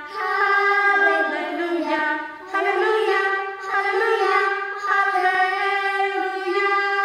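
High-pitched singing in long, held notes, with a brief break about two and a half seconds in.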